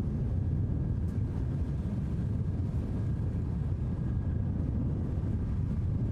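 A steady deep rumble with an even level throughout and a faint thin high tone held over it.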